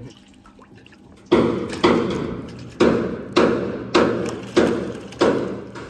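Live fish thrashing after being netted, a run of about seven sudden wet slaps and splashes, roughly two a second, starting about a second in.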